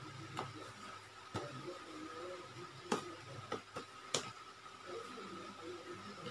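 Handling noises: about six short, sharp clicks and taps as a hard case and other objects are handled, most of them between three and four and a half seconds in, over a faint steady high hum.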